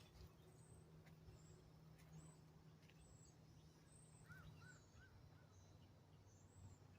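Faint songbirds chirping: short high calls repeating every half second or so, with a quick run of four lower notes about four seconds in, over a faint steady low hum.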